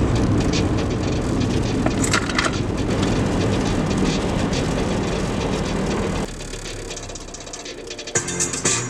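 A steady low rumble with scattered crackles that drops away suddenly about six seconds in. Plucked-string music begins near the end.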